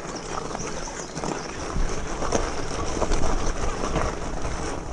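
Fat-tyre mountain bike rolling over loose gravel: a steady crunch of the tyres with scattered knocks as the bike hits small bumps. A low rumble of wind on the microphone grows heavier about two seconds in.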